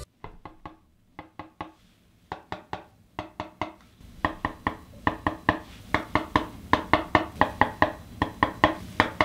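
Fingertips tapping on the back of a silicone iPhone case held in the hand, done to compare how a genuine Apple case and a counterfeit sound. It is a run of short, light taps, sparse at first, then quicker and louder from about four seconds in, at roughly four taps a second.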